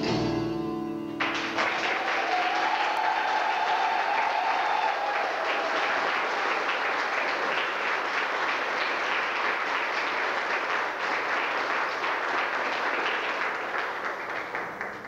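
Audience applauding after the dance music stops about a second in, with a long cheer riding over the clapping for a few seconds; the applause fades out near the end.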